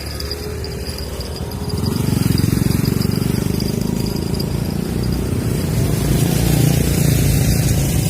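A motor vehicle's engine rumbling past, growing louder about two seconds in and staying loud, with a steady high insect buzz behind it.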